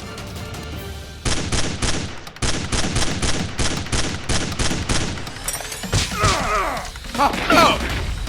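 Rapid automatic gunfire sound effect, about five shots a second, starting about a second in over background music. A voice cries out twice near the end, between the shots.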